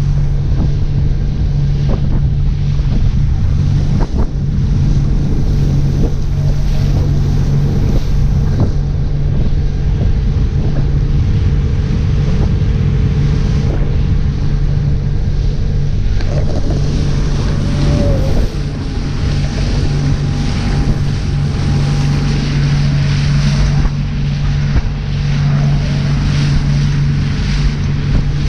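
Motorboat under way at cruising speed: a steady engine drone under water rushing past the hull and wind buffeting the microphone.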